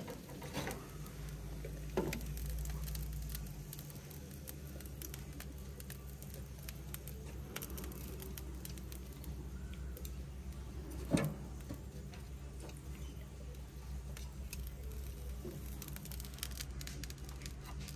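Sausages sizzling and crackling on a barbecue, over a steady low hum, with scattered small clicks and a couple of short knocks.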